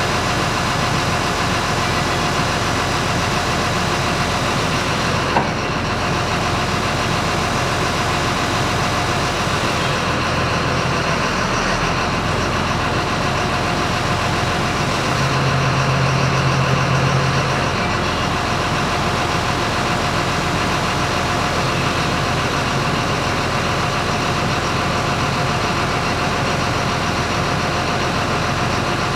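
An engine running steadily at idle, with a single knock about five seconds in. A low hum swells a little louder for a few seconds past the middle.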